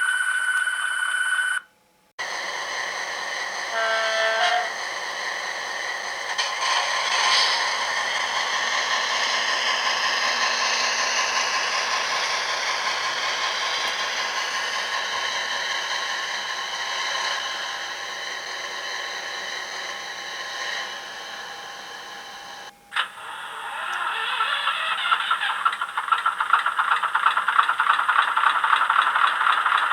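H0 model of an NS series 200/300 diesel shunting locomotive playing its digital diesel sounds through its small onboard speaker: a short horn blast about four seconds in over the running engine, then, after a sudden break near the end, a louder rattling diesel idle.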